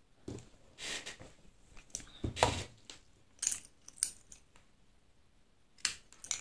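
Scissors and small sewing tools handled on a table: a scattered series of short clicks and clinks, the loudest about two and a half seconds in.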